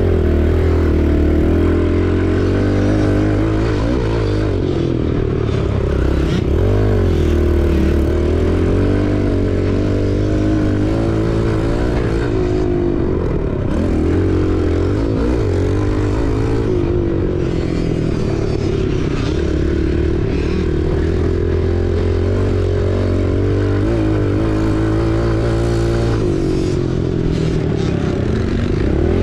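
Dirt bike engine running hard under the rider, its pitch rising and falling again and again as the throttle opens and closes through the track's corners and straights.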